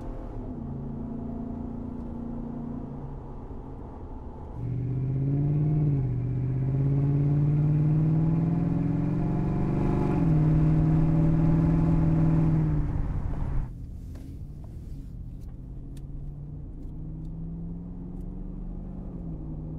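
Ford F-150's 5.0L V8 through a Flowmaster Force II single side exit cat-back exhaust with a 70 Series muffler, pulling through the gears with a rumble. It is quieter heard from inside the cab, and louder from about four seconds in, outside at the side-exit tip, where the pitch climbs and drops at an upshift about ten seconds in. Back inside the cab it is quieter again and climbs and drops once more near the end.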